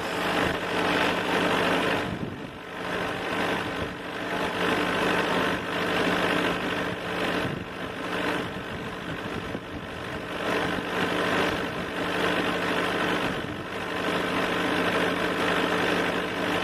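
Small two-stroke racing kart engines buzzing as junior cadet karts run past on the circuit, the sound swelling and fading as they go by.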